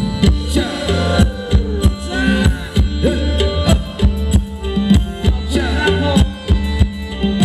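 A live band playing Thai ramwong dance music: a fast, steady drum beat of about four strokes a second over a bass line, with a gliding melody on top.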